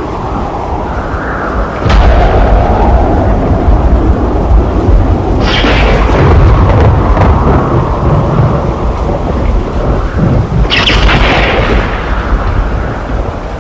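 Thunderstorm: continuous low rumbling thunder with sharp thunderclaps about two seconds in, about five and a half seconds in and near the eleventh second, over steady rain.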